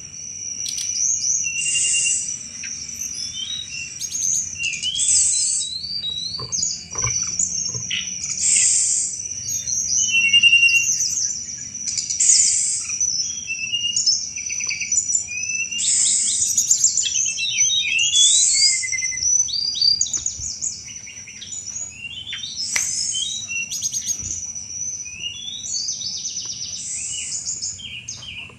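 Tledekan gunung singing continuously: phrases of high-pitched whistles and rapid chattering, clicking notes (the 'cetrekan' style) come again every few seconds, over a steady high-pitched hum.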